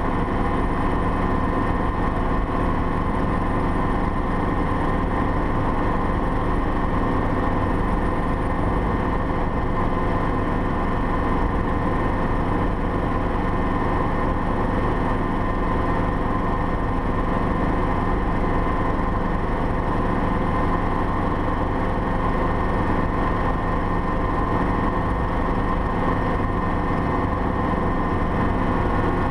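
Steady cabin drone of a Schweizer 300CB light helicopter in flight: its four-cylinder Lycoming piston engine and rotors running at constant power, with no change in pitch or level.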